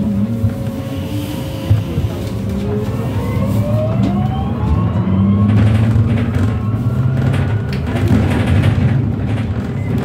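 Switch Mobility MetroCity electric bus's traction motor whining, rising steadily in pitch from about two seconds in as the bus accelerates, over a low rumble of the bus on the road.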